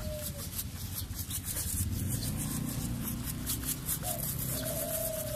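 A sponge with acid rain remover is scrubbed back and forth over car window glass in quick repeated strokes, with a gritty rasp. The roughness is the sign that water-spot mineral deposits are still on the glass. A long held crowing call, from a rooster, sounds about four seconds in.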